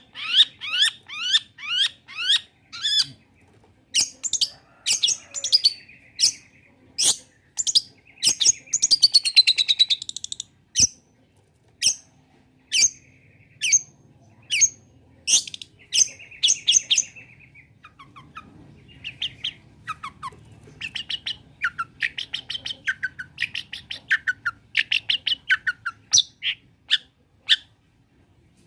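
Long-tailed shrike (cendet) singing a varied, chattering song: quick series of short, sharp falling notes mixed with harsh buzzy calls, a fast trill about a third of the way in, and a short lull past the middle before the sharp notes resume.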